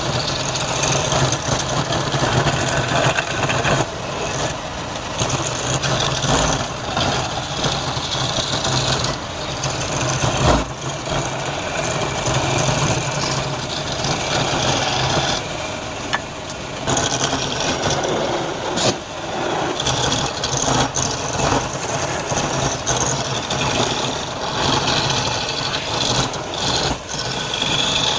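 Wood lathe running with a steady motor hum while a turning tool cuts and scrapes the spinning wood, giving an uneven rasping noise with scattered sharp clicks.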